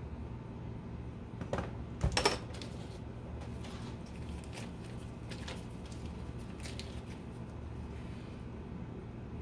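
Kitchen handling noises on a counter: a few sharp clinks and knocks about two seconds in, then faint scattered light taps, over a steady low hum.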